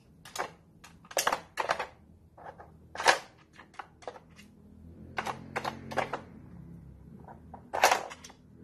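Irregular hard plastic clicks and clacks from a dog puzzle board as a toy poodle works at its bone-shaped lids and pieces, the loudest knocks about three seconds in and near the end.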